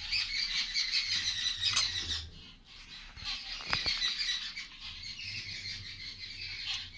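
Small birds chirping and squawking over and over, with one short knock a little past the middle.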